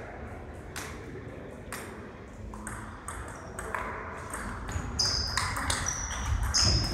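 Table tennis ball clicking off the rackets and the table during a rally, sparse at first and then quicker after a few seconds. Short high squeaks of sneakers on the gym floor come near the end.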